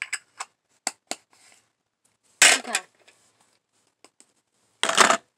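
Handling noise from a small plastic makeup compact and brush: a few short clicks in the first second and a half, then two louder clattering knocks about 2.5 s and 5 s in.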